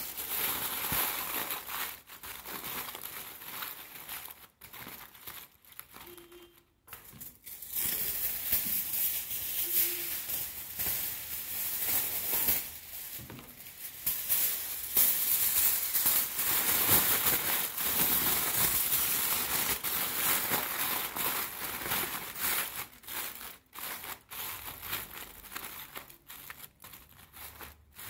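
Aluminium foil being crumpled and pressed by hand around a cone-shaped form: a long run of crinkling that dies down briefly about five seconds in, then goes on strongly before breaking into shorter spurts near the end.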